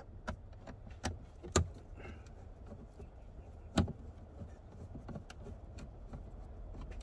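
Irregular light clicks and taps of a hand tool and fingers working at the screws of the plastic dashboard trim, with two sharper knocks about a second and a half and about four seconds in.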